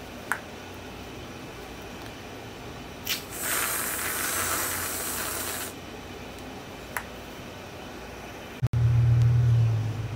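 Aerosol can of whipped cream spraying: a short click about three seconds in, then a hiss lasting about two seconds. Near the end a low hum starts suddenly and is the loudest sound.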